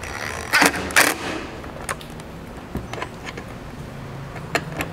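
Cordless drill with a 5/32 hex bit tightening quarter-inch button head bolts on an aluminum roof rack mount. There is a low steady motor hum in spells, and two sharp metal clicks in the first second.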